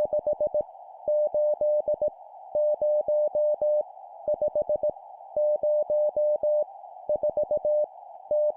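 Morse code at 17 words per minute: a single pitched beep keyed on and off in dots and dashes, sending random digits as five-element character groups with short gaps between them, about six characters in all. A steady hiss sits under the beeps throughout.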